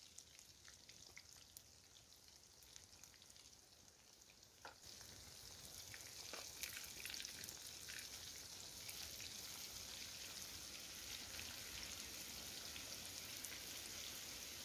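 Floured fish pieces frying in hot oil in a pan over a wood fire. After a few faint ticks, a steady sizzle sets in about a third of the way through and holds.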